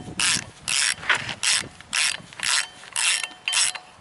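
Hand ratchet with a socket clicking in steady back-and-forth strokes, about two a second, while tightening flywheel bolts on a Ford 5.0 V8.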